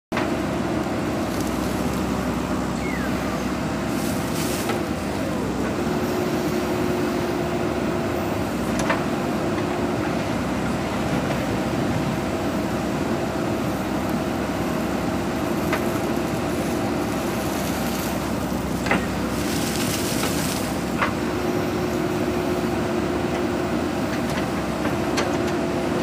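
JCB backhoe loader's diesel engine running steadily under load while the backhoe digs, its tone shifting slightly as the hydraulics work. A few sharp knocks from the bucket and arm stand out, about four times.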